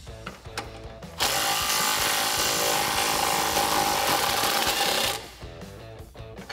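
Cordless impact wrench running in one loud burst of about four seconds, starting about a second in, as it breaks loose and backs out the 22 mm rear track bar bolt. Background music plays throughout.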